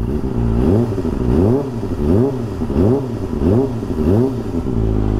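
Kawasaki ZX25R's 250 cc inline-four blipped about six times in quick succession through an Akrapovic slip-on exhaust while standing, each rev rising and falling, then settling back to idle near the end. The note is tame, "adem" (calm).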